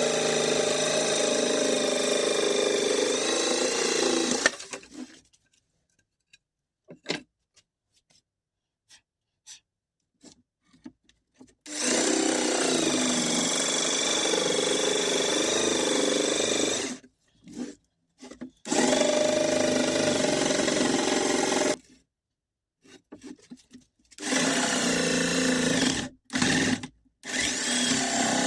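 Small electric motor running with a steady whine, switched off and on several times: it runs for a few seconds, stops abruptly, and stays silent except for scattered clicks before starting again, with a few brief on-off blips in between.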